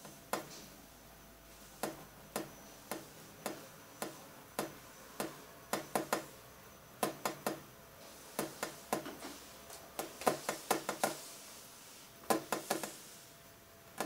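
A series of short, sharp knocking clicks, evenly spaced at about two a second at first, then coming in quick clusters in the second half, over a faint steady hum.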